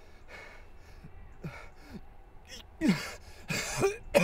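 A man gasping for breath in short, ragged gasps, some with a brief falling moan in the voice, growing louder in the second half: an acted dying man's last breaths.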